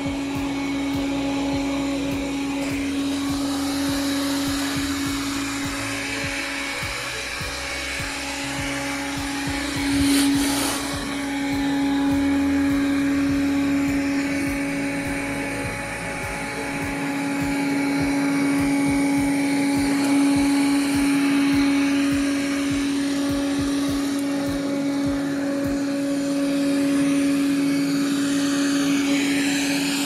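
Xiaomi Mi Vacuum Mop Essential robot vacuum running over a shag rug: a steady motor and suction hum with a low whine, with a brief louder swell about ten seconds in.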